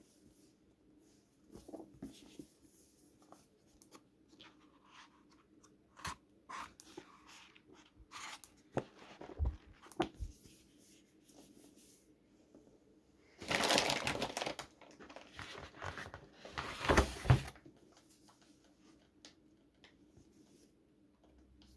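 Packaging being handled and torn open: scattered rustles and light taps, with two louder stretches of tearing and crinkling a little past halfway and again about three seconds later.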